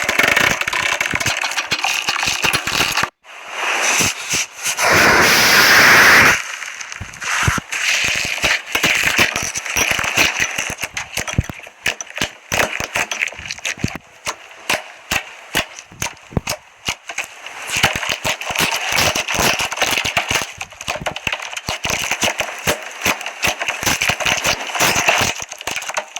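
Slime being squeezed and worked by hand, with dense, irregular crackling and popping of trapped air. There is a brief break about three seconds in, then a louder hissing squelch for about two seconds.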